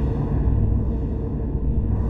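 Dark ambient drone music: a dense, steady low rumble, with a hiss above it that swells and fades about every second and a half.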